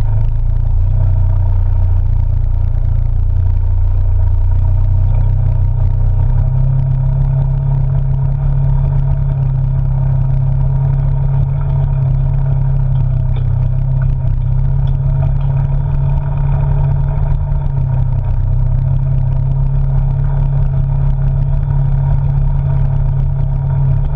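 Polaris RZR side-by-side's engine running steadily as it drives along a dirt trail, a continuous low drone that picks up slightly about four seconds in.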